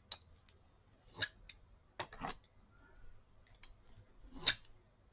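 A hand paint scraper worked across acrylic paint on paper: a handful of short scraping strokes, the loudest near the end.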